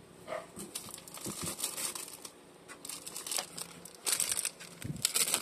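Packaging crinkling and rustling as items are handled and pulled from a gift box; the crackles are scattered at first and grow denser and louder about four seconds in.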